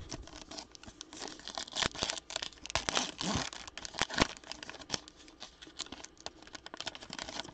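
Foil wrapper of a trading-card pack being torn open and crinkled by hand: a quick run of crackles and rips, busiest in the first half.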